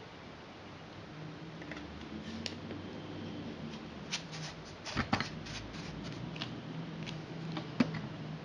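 Metal lightsaber hilt being handled: a run of small clicks and light metal knocks, clustered about halfway through, with one sharper click near the end, over a faint low hum.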